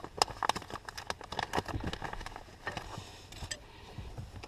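Irregular metal clicks and knocks of bolts and a steel seat-riser bracket being handled and lined up, busiest in the first two seconds and sparser after.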